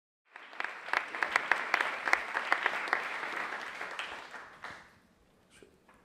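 Audience applauding, dying away about five seconds in.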